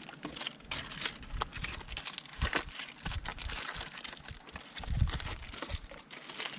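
A new boat ignition switch being unpacked from its box: packaging crinkling and rustling, with irregular small clicks and handling knocks.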